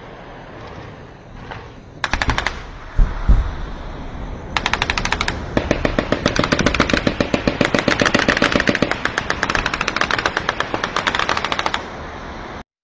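Automatic weapon fire in bursts: a short burst about two seconds in, two heavier thuds, another short burst, then a long sustained string of rapid shots lasting about six seconds that stops shortly before the end.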